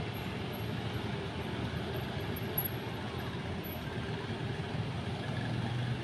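Road traffic of scooters and cars, a steady even din of engines and tyres.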